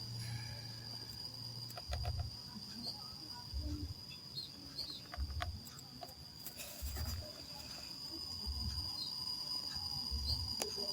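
Steady high-pitched insect chirring, with a low pulse about every one and a half seconds and a few scattered clicks.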